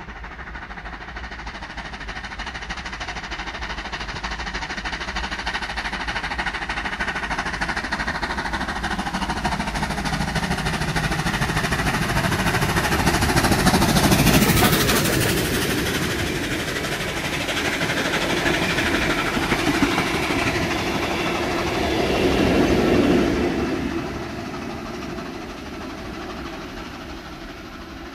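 NSW C38-class streamlined steam locomotive hauling passenger carriages, approaching and passing at speed. The sound builds to its loudest as the engine goes by about halfway through, then the carriages roll past with a second, smaller swell and fade away near the end.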